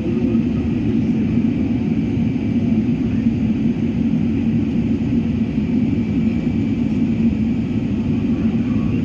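Steady roar of a jet airliner's engines and rushing air heard inside the passenger cabin during the climb after takeoff, a deep even rumble with a faint high whine on top.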